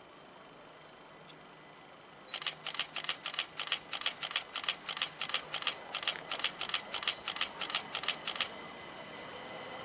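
A rapid, even series of sharp mechanical clicks, about four a second, starting about two seconds in and stopping about six seconds later.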